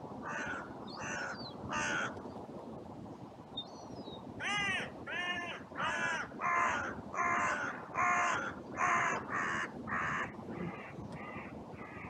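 Carrion crows cawing: three caws in the first two seconds, then a run of about a dozen harsh caws at nearly two a second, growing weaker toward the end, over a low rush of wind.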